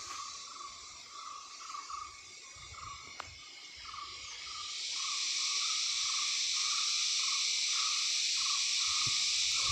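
Hill-forest wildlife ambience: a steady, even chirping about twice a second, over a high hissing drone that grows louder about halfway through.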